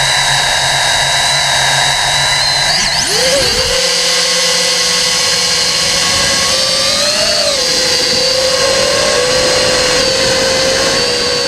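FPV racing quadcopter's brushless motors whining. About three seconds in the pitch sweeps sharply up as the throttle opens for takeoff, then holds a steady high whine, with a brief rise and fall around seven seconds.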